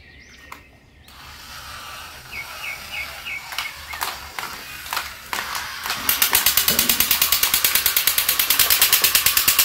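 Battery-operated superhero toy figures: scattered plastic clicks and taps as they are handled on a tabletop, then from about six seconds in a fast, even mechanical rattle of about eight pulses a second that grows louder.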